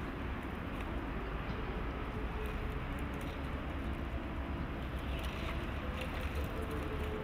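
Steady outdoor background rumble, heaviest in the low end, with a faint steady hum in the middle.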